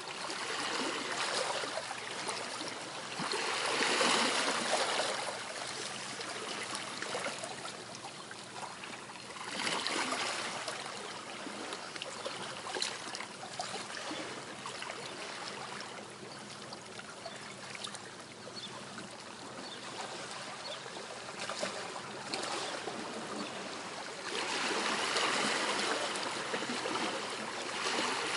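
Gentle sea waves washing on a shore, a steady hiss that swells and ebbs several times as waves come in.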